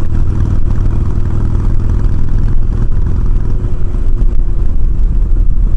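Harley-Davidson Sportster's air-cooled V-twin engine running steadily.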